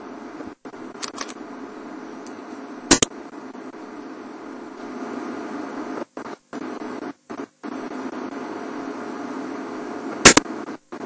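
Broadcast audio glitches: a steady low hum broken by loud sharp clicks, two of them about three seconds in and near the end, and several brief moments where the sound cuts out completely.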